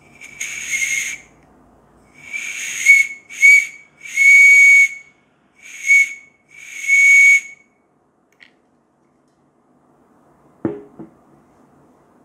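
A small whistle blown by compressed air from an air-duster can through a thin straw: six short shrill blasts of one steady pitch with a hiss of air, the later ones held for up to about a second. A short knock follows near the end.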